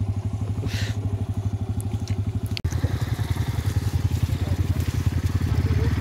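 Motorcycle engine running at a steady idle. It breaks off briefly about two and a half seconds in and then comes back louder.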